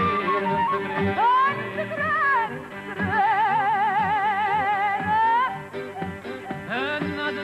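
Southern Italian folk music played live: a small flute carries a melody with wide vibrato and sliding notes over a steady drone. The melody slides up into a note about a second in, holds a long wavering note through the middle, and slides up again near the end.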